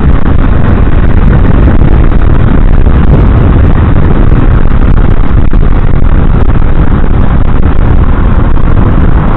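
Steady loud riding roar of a Yamaha Crosser 150 motorcycle at cruising speed: wind rushing over the microphone with the single-cylinder engine running underneath.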